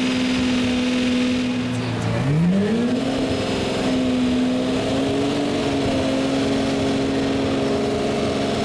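Lamborghini Murciélago LP640's V12 engine revved on the spot and held at a steady raised speed. About two seconds in it drops back briefly, then climbs again and holds.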